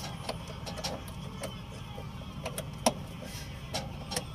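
Scattered, irregular metal clicks and taps of a hand tool working a truck's wiring connection, with one sharper click about three seconds in, over a steady low hum.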